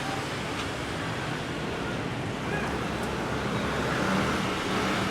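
Steady city traffic noise: an even wash of distant road traffic with a few faint higher tones on top.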